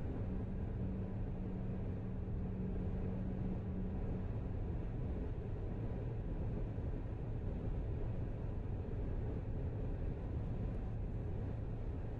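Steady road and engine rumble of a car cruising at highway speed, with a low drone over the first four seconds that fades out.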